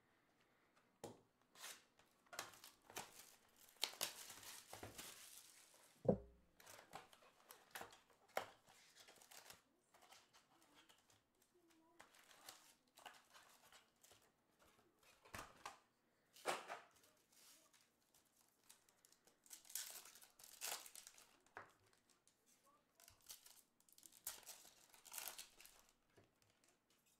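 Trading card packs being torn open and their wrappers crinkled while the cards are handled: faint, scattered rustles and tears, with one dull thump about six seconds in.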